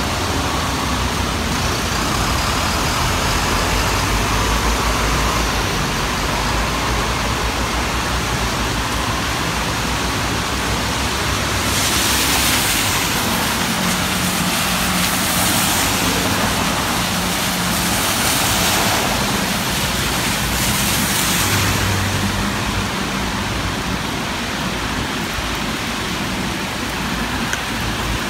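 Road traffic on a wet street: a heavy vehicle's engine runs low for the first several seconds, then tyre hiss swells and fades several times in the middle as vehicles pass, with an engine hum under it.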